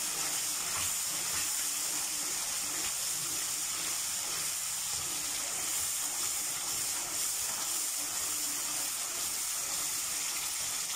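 Thick tomato-chilli Manchurian sauce sizzling in a wok over a high gas flame, a steady hiss, while a metal spoon stirs it.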